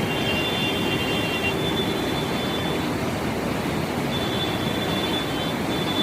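Godavari floodwater rushing past in a steady, continuous wash of noise, with faint thin high tones coming and going.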